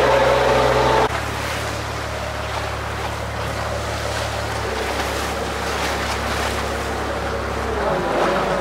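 Fishing boat's engine running, with water rushing along the hull and wind. About a second in, the louder, higher engine note drops away abruptly, leaving a steady low engine hum under the sound of choppy sea and wind.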